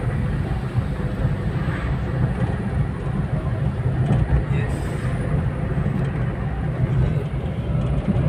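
Vehicle on the move: a steady low engine and road rumble with no change in pitch.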